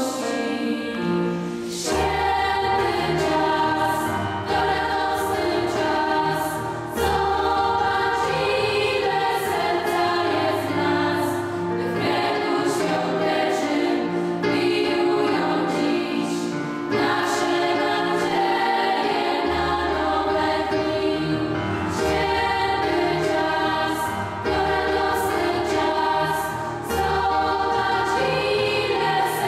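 Girls' vocal ensemble singing a Polish Christmas carol (kolęda) in several-part harmony. Beneath the voices runs an instrumental accompaniment with a low bass line that changes note every couple of seconds.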